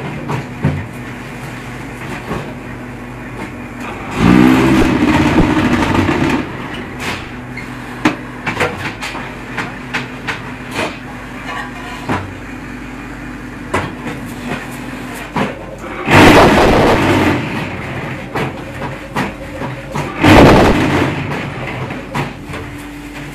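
4-15 concrete hollow block machine running: a steady motor and hydraulic hum with repeated metallic clanks and knocks, and three loud bursts of rattling vibration, about four seconds in, around sixteen seconds and around twenty seconds, as the mould is vibrated to compact the blocks.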